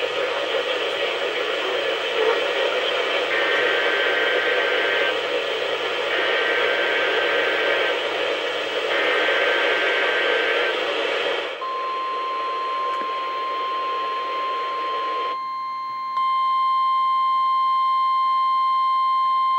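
NOAA Weather Radio receivers on a static-laden signal, with three faint data bursts of two-tone chirping (the SAME header that codes a Severe Thunderstorm Watch). At about 11 seconds in, the hiss clears and the steady 1050 Hz weather-radio alert tone sounds. About five seconds later further steady tones join and it grows louder.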